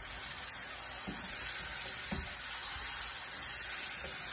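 Bacon roux gravy, thinned with chicken stock, sizzling steadily in a cast iron skillet as a wooden spatula stirs it, with a few soft scrapes of the spatula on the pan bottom.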